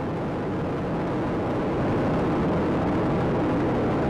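Space Shuttle Atlantis's solid rocket boosters and three main engines during ascent: a steady, deep rumbling noise, growing slightly louder about two seconds in.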